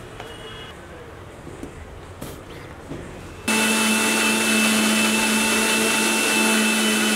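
Electric mixer grinder with a steel jar, switched on about three and a half seconds in and running at a steady high speed with a fixed hum, grinding soaked almonds and water into a paste. A couple of faint knocks come before it starts.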